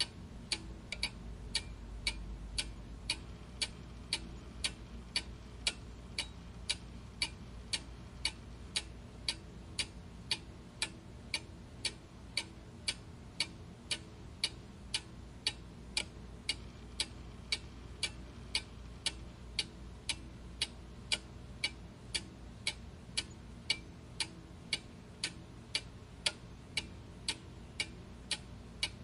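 A clock ticking steadily, about two evenly spaced ticks a second, over a faint low hum.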